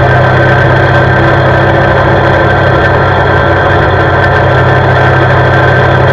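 CFMoto C-Force 520 ATV's single-cylinder four-stroke engine running at a steady cruising speed on asphalt, a loud, even drone that holds constant throughout.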